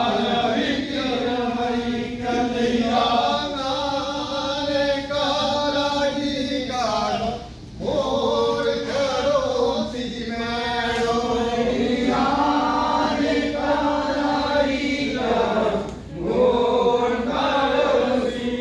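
Group of Kurumba men singing a traditional chant together in long held phrases, breaking off briefly for breath twice.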